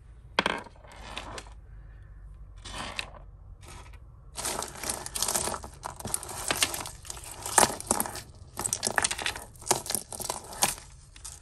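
Costume jewellery being handled and sorted: crinkling of plastic and small metal clinks, in dense clusters from about four seconds in.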